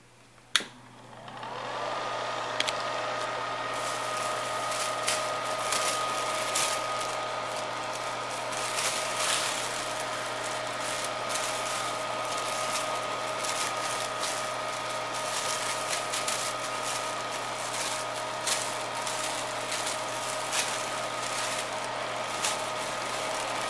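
Vintage Arno hair dryer switched on with a click, its motor spinning up over about a second to a steady whine over rushing air. It runs on evenly, with scattered clicks and crackles.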